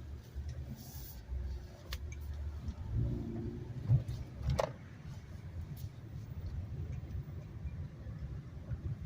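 Steady low rumble of a car driving, with two sharp knocks about four and four and a half seconds in.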